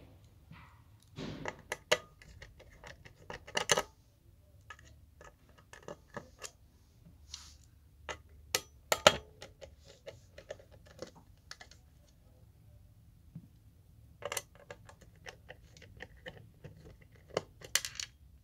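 Irregular clicks, taps and light scrapes of a screwdriver and small parts being handled while the screws holding a Ubiquiti UniFi access point's circuit board are taken out. They come in clusters, with the sharpest click about nine seconds in.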